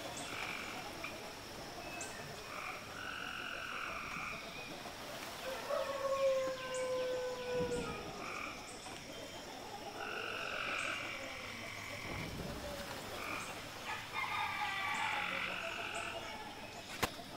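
Frogs croaking in a chorus of repeated calls about a second long, over a steady high-pitched drone. A single tone falls slowly in pitch about six seconds in.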